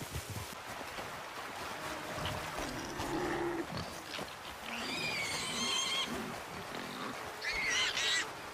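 Animal calls: a high, wavering call about halfway through and a shorter one near the end.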